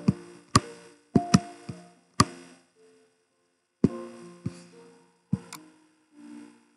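Background music of sparse struck notes, each with a sharp attack and a short held tone, in short phrases with brief pauses between them.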